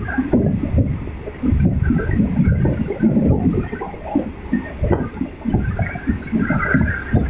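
Wind buffeting the microphone at the open window of a moving passenger train, coming in gusty, uneven rushes, with the carriage's running noise underneath.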